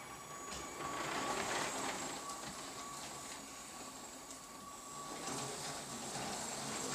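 Small electric motor of a remote-controlled LEGO High Speed Passenger Train whirring steadily with a thin whine as the train runs along its plastic track.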